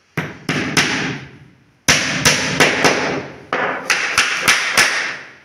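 Hammer driving one-inch nails through a plywood strip into a plywood sheet: three blows, a short pause, then a steady run of about eight blows, roughly three a second.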